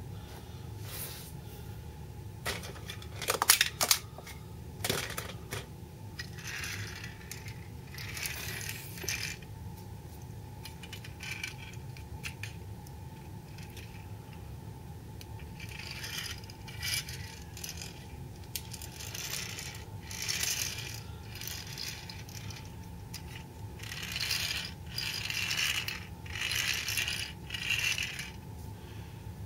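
Small die-cast toy trucks pushed and rolled across a vinyl tile floor: rattly scraping of the little wheels in spells of a second or two, with a few sharp clicks of the toy on the floor about three to four seconds in. A steady low hum runs underneath.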